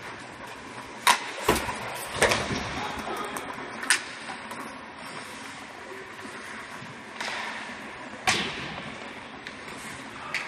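Ice hockey play: a handful of sharp clacks of sticks on the puck and the puck against the boards, ringing in the rink, over a steady hiss of rink noise.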